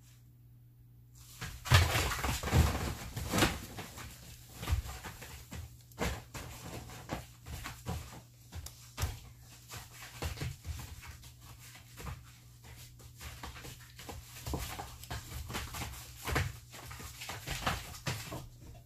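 A large dog and a puppy play-fighting on a plastic tarp: irregular scuffling, tarp rustling and knocks, mixed with dog vocal sounds. It starts about two seconds in and keeps going in uneven spurts.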